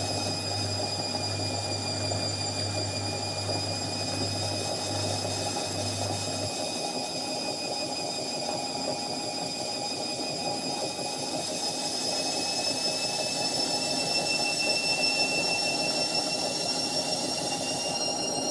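Indesit washing machine spinning at top speed: a steady high whine from the motor over a rumble from the drum, the whine rising slightly in pitch near the end.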